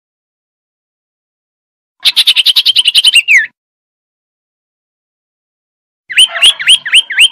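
Male common iora calling: a fast run of about a dozen high whistled notes ending on a falling note, then after a pause a series of about five swooping whistles.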